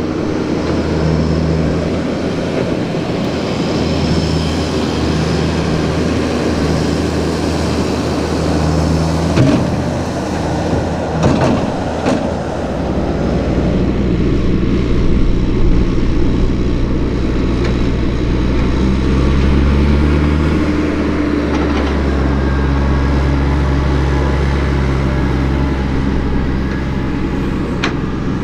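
Heavy tractor diesel engines running steadily under load, among them a Fendt 820 Vario hauling a dumper trailer of earth. The engine note changes about halfway through, and there are a few sharp knocks.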